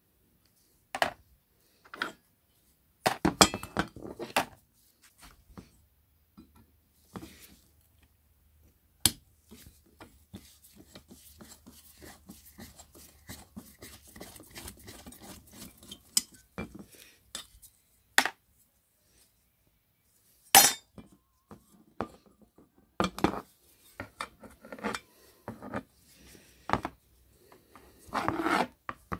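Metal parts of an old curling iron clinking and knocking against each other and on the wooden bench as it is taken apart by hand. In the middle comes a stretch of light scraping as a screwdriver turns out a screw.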